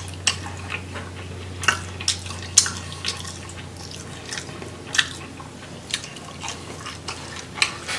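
Close-up wet eating sounds: irregular sharp mouth clicks, lip smacks and chewing of a sauce-soaked shrimp, with the loudest clicks in the first three seconds and again about five seconds in. A steady low hum runs underneath.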